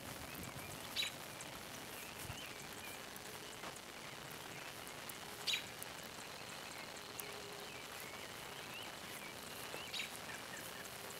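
Wood fire crackling in a homemade stove's firebox, with a few sharp pops: one about a second in, one midway and one near the end. Birds chirp faintly in the background.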